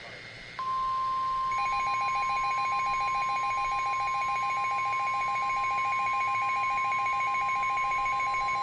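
NOAA Weather Radio 1050 Hz warning alarm tone, a single steady high beep that starts about half a second in and holds, announcing a warning. About a second later a second, rapidly pulsing beep joins it and runs alongside.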